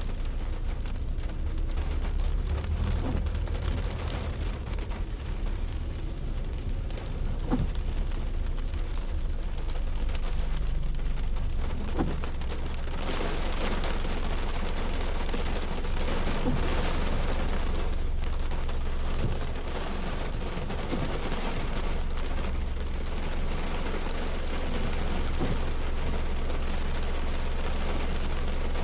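Thunderstorm wind and rain, a continuous rushing noise with a heavy low rumble of wind on the microphone, growing fuller and louder about halfway through.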